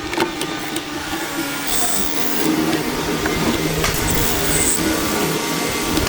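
Power tool running steadily in a wood workshop, with a sharp knock or two near the start.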